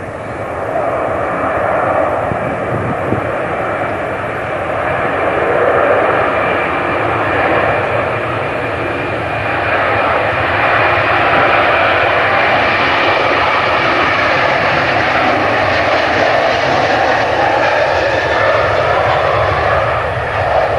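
Airliner engines running loud, a steady noise with a faint whine in it that grows louder and hissier from about halfway through.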